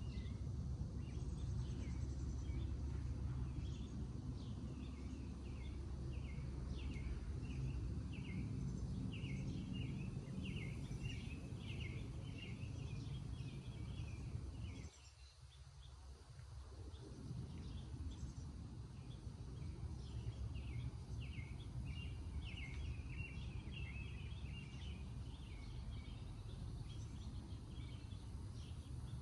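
Outdoor ambience: many small birds chirping and calling over a steady low rumble. The rumble drops away for a moment about halfway through and then comes back.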